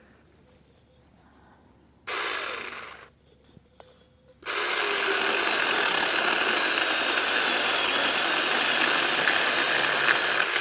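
Saker mini 20 V cordless electric chainsaw with a 4-inch bar, run briefly for about a second, then started again about four and a half seconds in and running steadily as it cuts through a piece of wood.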